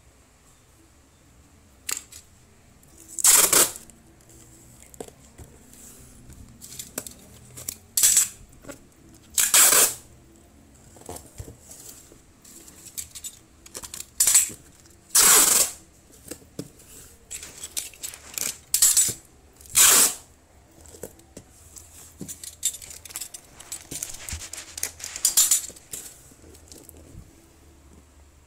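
Paper sticker labels being peeled from their backing and pressed and rubbed onto a cardboard box by hand: a series of short, sharp ripping and rubbing noises, about a dozen, with quieter scuffing in between.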